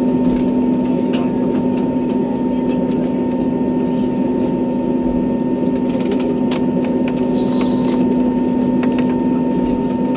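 Airliner cabin noise in flight: a steady drone of engine and air noise with constant humming tones. A few faint clicks are scattered through it.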